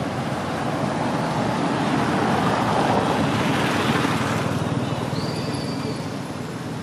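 A motor vehicle passing by, its engine and road noise swelling to a peak about halfway through and then fading away.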